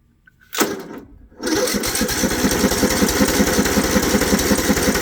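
Craftsman riding lawn mower's electric starter cranking the cold engine. A short turn about half a second in, then steady cranking with a rapid, even chugging that does not catch. The cranking sounds a little bit weak, like the battery's almost dead.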